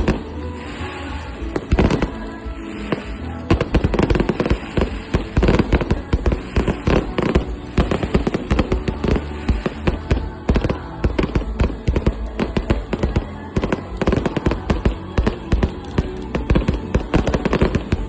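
Fireworks going off in quick, dense succession: a steady run of sharp bangs and crackles, several a second, with music playing underneath.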